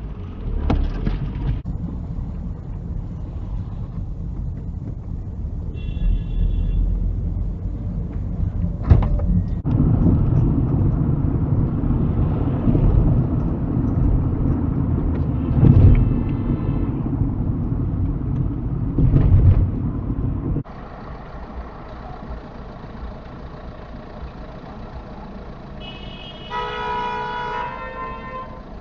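Road and engine noise heard from inside a moving car, with short car horn honks about six seconds in and again about sixteen seconds in, and a longer horn blast near the end.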